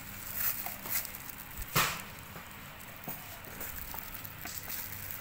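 A few scattered clicks and knocks from a Makita brush cutter being handled, over faint background noise. The loudest knock comes about two seconds in.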